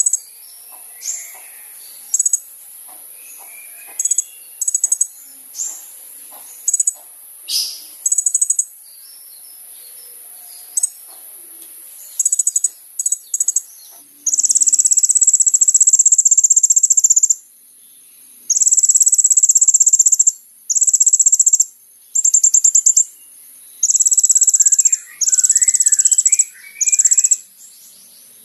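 Kolibri ninja sunbird singing: scattered short high chirps at first, then, from about halfway, a run of long, loud, high, rapid trills of one to three seconds each, over a steady high hiss.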